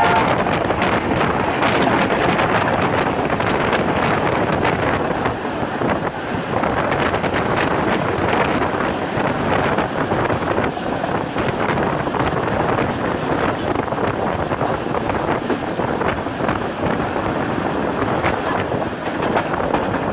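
Steady rush of wind and rolling noise from a moving passenger train, with scattered clicks and knocks from the running gear, heard from on board. A train horn cuts off right at the start.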